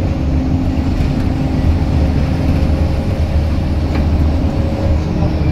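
Scania L94UB Wright Solar bus's rear-mounted nine-litre five-cylinder diesel engine driven hard, heard from inside the passenger saloon: a loud, steady low drone with a higher held tone that fades near the end.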